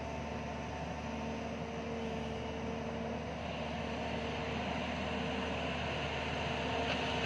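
JCB tracked excavator's diesel engine running steadily under working load as the bucket digs and lifts soil, a constant hum with a higher hiss that grows stronger about halfway through.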